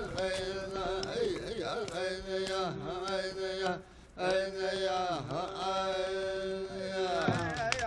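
A single voice chanting in Navajo. It holds long notes on one steady pitch, broken by brief downward slides, with a short breath pause about four seconds in.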